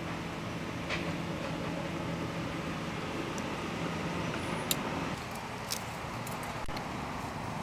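Steady road-traffic noise with a low vehicle engine hum that drops away about five seconds in, and a few faint clicks.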